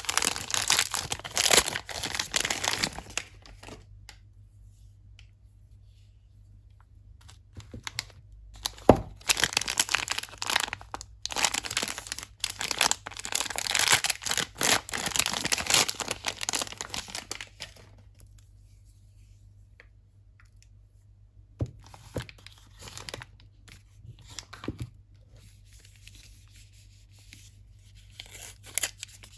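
Soap packaging being torn open and crinkled by hand, in bursts of rustling with pauses between them. The last third is quieter, with only a few light taps and handling sounds.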